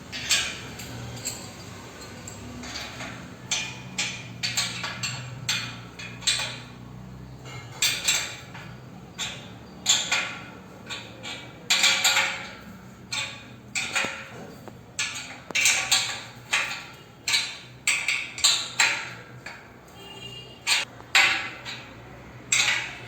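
Steel power-rack tubes and hardware clanking and knocking as the top bars are fitted: dozens of irregular sharp metal clanks, some ringing briefly.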